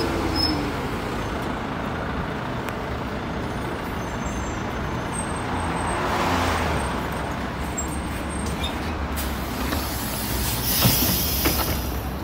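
Volvo 7700 city bus pulling in to a stop, its engine rumbling low throughout, with a release of air brake hiss about six seconds in as it draws up. A second, sharper hiss of air and a few clicks come around ten seconds in.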